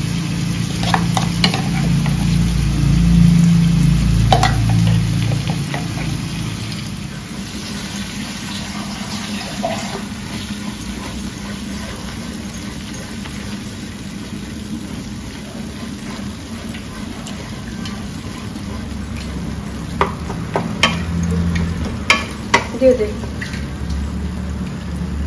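Ground masala paste frying in oil in a metal kadai, sizzling as a spatula stirs and scrapes it through the onions, over a low steady hum. A few sharp knocks of the spatula against the pan come near the end.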